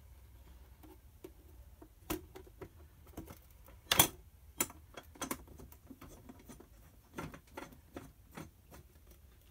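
Irregular light clicks and taps from hands handling a brass mantel clock and its quartz movement at the back of the case, with one sharper knock about four seconds in.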